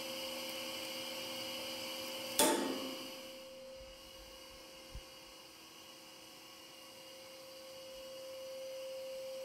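Fibre composite tensile specimen failing under load with a single sharp crack about two and a half seconds in, ringing out briefly. A steady high hum runs underneath.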